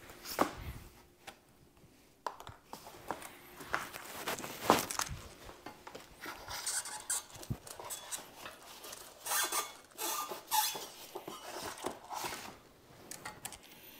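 Hydraulic hoses and fittings being handled by hand: irregular clicks and light knocks, with stretches of rustling in the second half.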